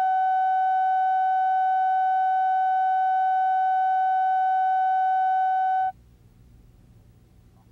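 Steady line-up test tone on a videotape leader, played under a countdown clock ahead of a TV spot. It holds one unchanging pitch, then cuts off suddenly about six seconds in, leaving only a faint low hum.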